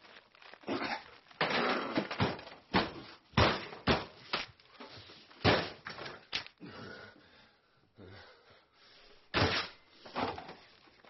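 Heavy, irregular thuds and bangs on a kitchen counter as a salad is roughly prepared by hand: more than a dozen knocks, thinning out past the middle, with one more loud bang near the end.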